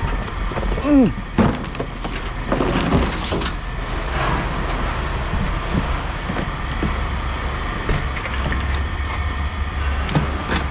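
Steady low engine hum with scattered knocks and clatter of scrap being handled, and a short squeak about a second in.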